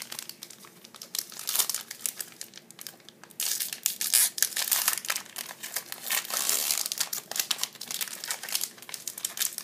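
Foil wrapper of a trading card pack crinkling and crackling as it is handled and torn open. It is sparse at first, then a dense, louder run of crackles starts about three and a half seconds in.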